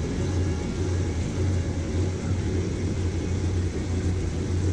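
Onboard sound of an indoor go-kart under way: a steady low hum with an even rushing noise over it.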